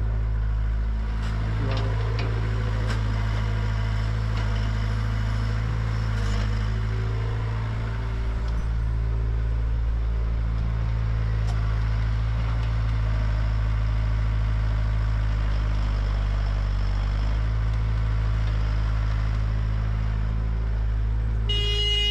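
Komatsu PC60 mini excavator's diesel engine running steadily under digging load, with a few light clanks from the bucket working soil. A vehicle horn sounds briefly near the end.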